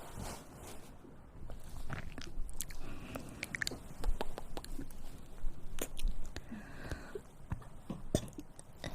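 Close-miked mouth noises: a scattered run of short clicks and smacks, like chewing or swallowing.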